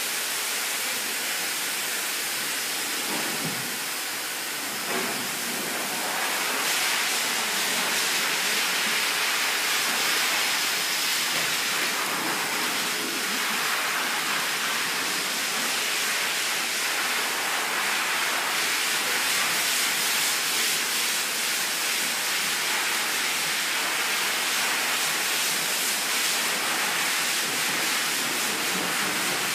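Steady rushing and splashing of pool water as a Siberian husky swims through it.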